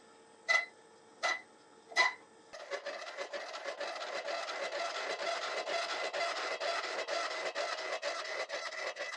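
Boring-head grooving cutter on a milling machine lightly ticking against a cast-iron block three times, once per spindle turn, then, about two and a half seconds in, starting to cut in earnest: a steady rasping scrape that pulses with each revolution.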